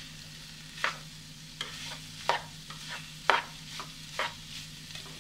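A spatula stirring chopped green beans and grated coconut in a pan, with a series of short scrapes against the pan, about seven strokes, over a faint sizzle of the beans cooking.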